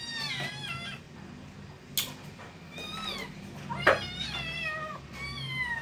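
Several hungry kittens meowing over one another, high-pitched and repeated, begging as food is being served. A sharp click about two seconds in and a louder knock just before four seconds in.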